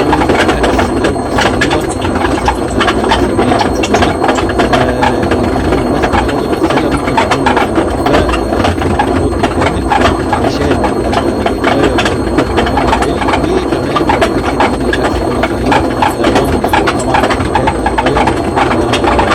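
Washing machine drum spinning in the spin cycle with a loud, steady clatter of rapid rattling clicks over a low hum: the annoying spin-cycle noise that signals a fault in the drum assembly.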